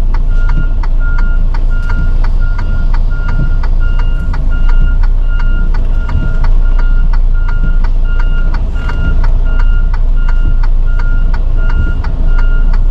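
Semi truck's reversing alarm beeping about twice a second, steady and evenly spaced, over the low rumble of its diesel engine, with a regular ticking alongside.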